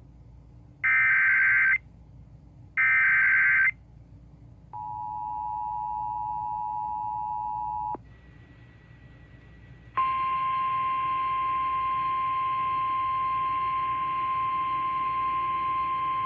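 Emergency Alert System header sequence: two raspy, one-second digital data bursts about two seconds apart, then the two-tone EAS attention signal for about three seconds. About ten seconds in, the steady single-tone NOAA Weather Radio warning alarm starts and holds.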